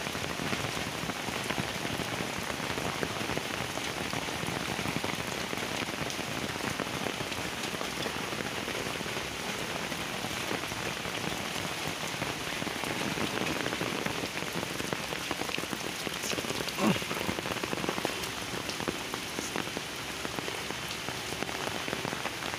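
Heavy rain pouring steadily, with a single brief thump about seventeen seconds in.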